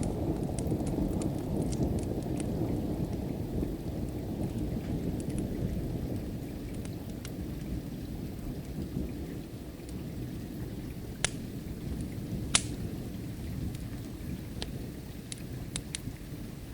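A low rumble of thunder slowly dying away over steady rain, with sparse sharp crackles and pops from a wood fire; two louder pops come a little past the middle.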